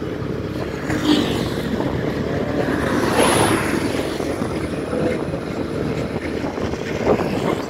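Road traffic and wind noise heard while travelling along a road: a steady rushing, louder for a moment about three seconds in.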